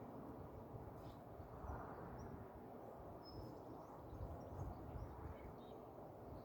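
Faint outdoor background noise, a steady low rumble, with a few short, faint, high bird chirps scattered through it.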